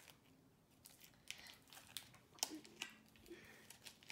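Faint crinkling and clicking of an MRE kippered beef snack package, a plastic-foil pouch, being pulled at by hand to tear it open.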